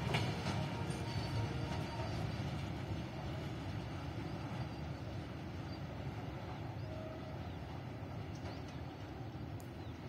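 Loaded freight train of BRNA flat wagons rolling away on the rails, a low steady rumble of wheels on track that slowly fades as the brake van at the tail recedes.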